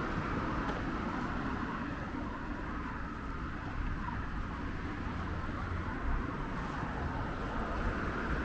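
Steady road traffic: a low rumble and broad hiss of passing vehicles. A thin, high steady tone comes in about two seconds in.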